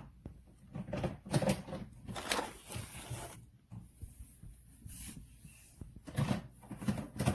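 Plastic toy tools and toolbox being handled: irregular knocks, clicks and rattling of hard plastic.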